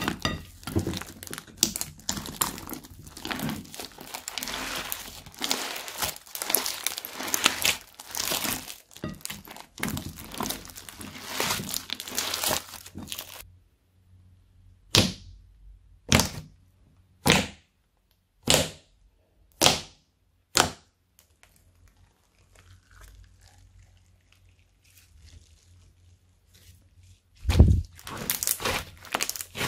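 Thick pink slime squished and kneaded by hand, giving dense, crackly squelching. After a pause come six sharp sticky pops about a second apart as fingertips poke into the slime spread flat. Near the end there is a low thud and then more crackling as the slime is lifted and stretched.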